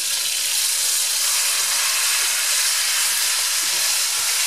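Venison roast searing in hot fat in a cast-iron Dutch oven: a steady sizzle.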